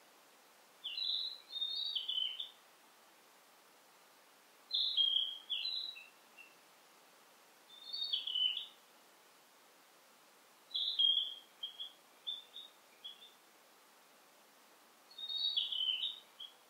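A songbird singing: five short phrases of quick, high warbled notes, a new phrase every three to four seconds, over a faint steady forest hiss.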